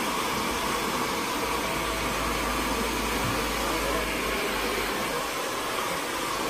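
Handheld hair dryer blowing steadily on damp hair, an even rushing hiss.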